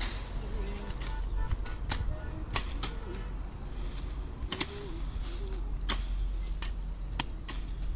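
Hand tools chopping and striking while bush is cleared from land: a dozen or so sharp, irregular blows.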